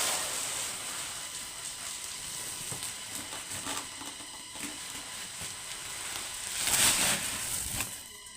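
Hand-turned jhato stone quern grinding maize: a steady gritty grating noise, louder at the start and again about seven seconds in.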